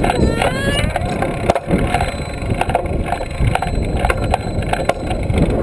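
Wind buffeting the microphone of a handlebar-mounted action camera on a moving trail-a-bike, with the bike's rattles and clicks over the road. A brief rising squeak about half a second in.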